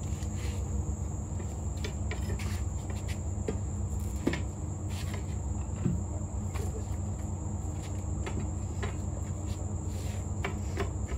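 Crickets trilling steadily over a low hum, with a few scattered knocks as tire tools strike the tire and rim during a manual tire mount.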